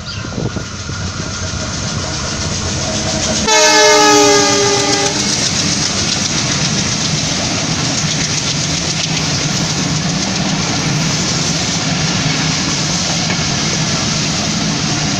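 A diesel locomotive hauling a passenger train approaches, growing louder. About three and a half seconds in it sounds its horn once for under two seconds, the pitch dropping as it passes. The passenger coaches then rumble and clatter steadily over the rails as they run by.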